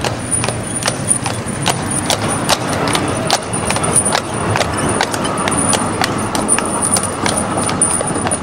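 Shod hooves of a heavy draught horse clip-clopping on the road at a steady walk while it pulls a horse tram, about two to three hoof strikes a second.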